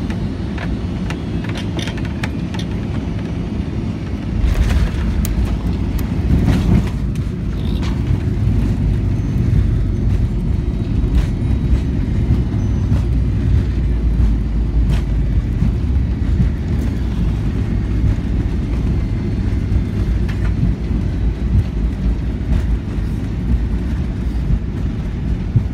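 Cabin noise of a Boeing 757-200 landing. About four seconds in, the low rumble jumps up with a few sharp knocks as the wheels touch down, then the heavy rumble of the landing roll down the runway goes on, easing a little over the last ten seconds.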